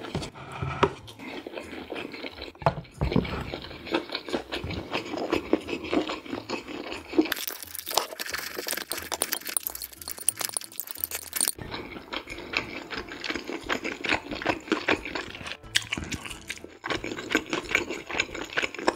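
Chewing and chopsticks clicking against dishes. In the middle comes about four seconds of harsh scraping, as chopsticks scrape saucy stir-fried squid and pork off a plate into a glass bowl of rice.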